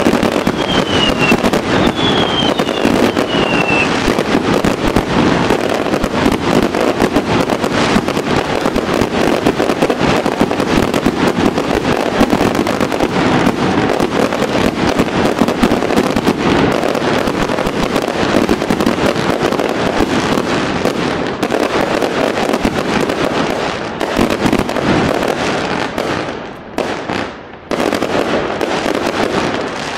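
Fireworks display: a dense, continuous barrage of bangs and crackling, with a few short falling whistles in the first few seconds. Near the end it thins to separate bangs with brief lulls between them.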